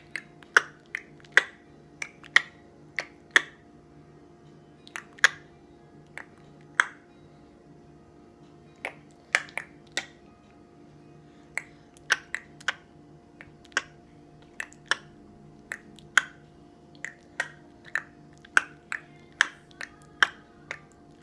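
Sharp mouth clicks made back and forth by a baby and an adult, dozens of them in irregular runs of two or three with short pauses between, over a faint steady hum.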